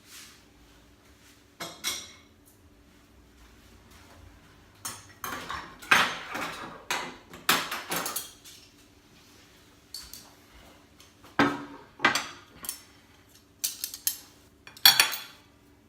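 Cutlery clinking and scraping against a plate in irregular clatters, busiest around the middle and again near the end.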